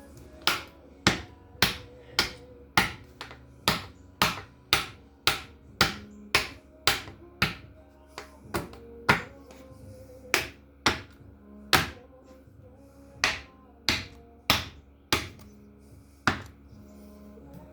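Steel hammer blows on metal, about two a second in runs with short pauses, each strike ringing briefly: driving connecting-rod bolts out of the rods of a seized Austin Healey six-cylinder engine.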